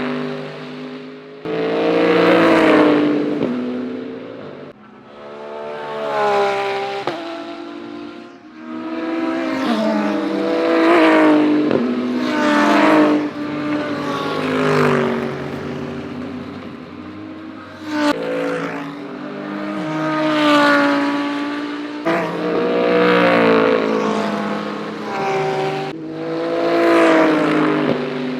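GT3 race cars passing one after another at racing speed, a string of flybys a few seconds apart. Each engine note swells as the car comes in and drops in pitch as it goes by.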